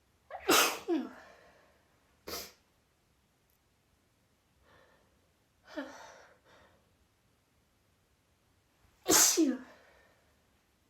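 A woman sneezing repeatedly in a fit. There is a loud sneeze about half a second in with a double peak and a falling voiced tail, a short sharp burst a couple of seconds later, and a softer sneeze around the middle. Another loud sneeze comes near the end.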